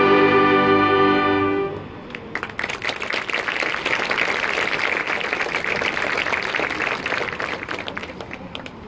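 A marching band's brass and winds hold a loud final chord that cuts off sharply under two seconds in, then the audience applauds, the clapping fading near the end.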